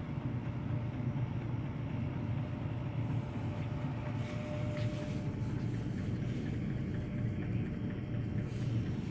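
JeioTech ISF shaker incubator running, its platform shaking flasks at about 250 rpm: a steady low rumble with a faint steady whine above it.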